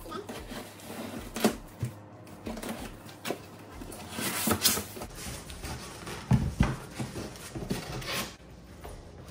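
Cardboard shipping box being opened by hand: packing tape slit and torn along the seam, then the flaps pulled apart, with scraping, rustling and clicks. A longer tearing rasp comes about four and a half seconds in, and a few dull knocks follow.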